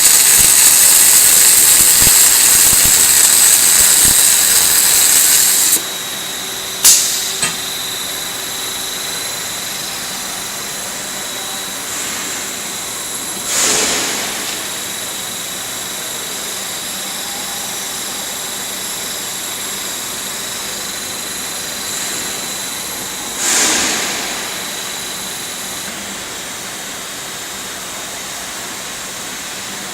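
Linear welding machine for rectangular tube running: a loud steady hiss that cuts off suddenly about six seconds in, then a sharp click. After that a quieter steady hiss with a thin high whine, and two short bursts of hiss about ten seconds apart.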